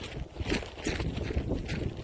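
Coleman raincoat flapping in gusty wind, irregular slaps about three times a second, over wind rumbling on the microphone.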